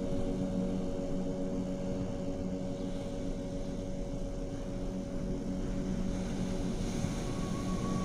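Ambient background music: a steady drone of held low tones, with a higher tone joining near the end.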